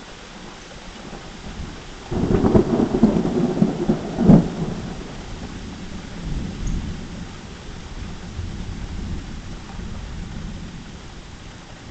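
Thunder clap: a sudden loud crackling crash about two seconds in, a sharper crack a couple of seconds later, then rumbling that fades away.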